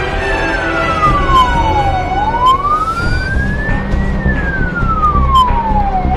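Fire truck siren on wail, sweeping slowly up and down in pitch, each rise and each fall taking about two seconds. The truck's engine and road noise rumble low underneath, heard from inside the cab.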